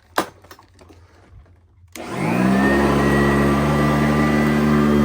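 Sanitaire S677 upright vacuum cleaner switched on about two seconds in, its motor winding up over half a second to a steady run with a hum and a whine. A single sharp knock sounds just before, near the start.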